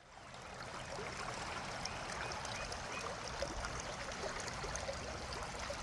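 River water flowing and trickling, a steady babble that fades in over the first second.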